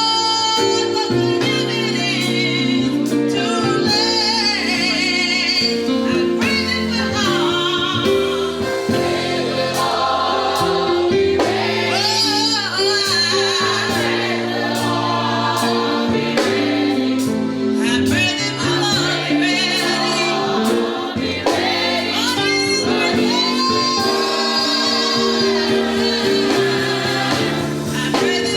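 Gospel music: a choir singing over sustained keyboard or organ chords and a bass line.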